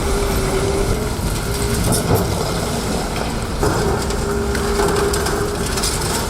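Heavy diesel-powered demolition machinery running under load, with a whine that fades out about a second in and returns past the halfway mark, and a few sharp crunches and knocks of material being broken.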